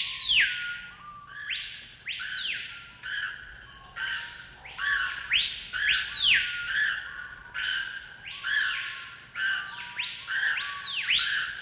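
Shrill, swooping bird-like calls, many of them overlapping, presented as jungle birds screeching. Each call shoots up in pitch and then slides back down, and they keep coming one after another.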